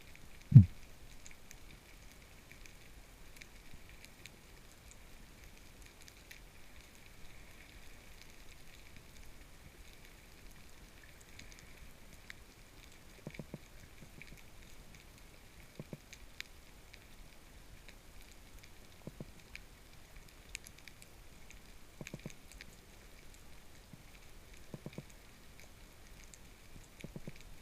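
Brown meagre drumming underwater: short clusters of low knocks every few seconds through the second half, over a steady crackling underwater hiss. A single louder low thump comes just after the start.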